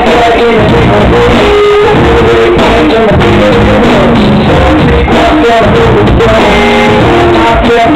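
A live band playing loudly, with electric guitar, keyboards and a drum kit.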